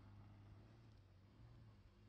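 Near silence, with the faint, steady low hum of a Jeep Grand Cherokee's engine pulling up a sand slope.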